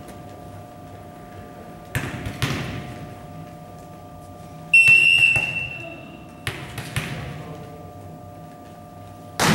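Volleyball referee's whistle blown in one steady, high blast of about a second and a half, signalling the server to serve. A few dull thuds come before and after it, with the echo of a large gym.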